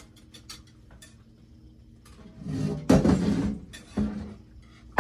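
Frying pan and dishes clattering as they are handled: a loud scraping clatter about three seconds in, a shorter one a second later, and a sharp knock at the end.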